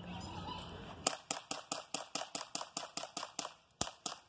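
BB pistol fired rapidly, a string of sharp pops about six or seven a second starting about a second in, with a short break a little past halfway before the shooting goes on.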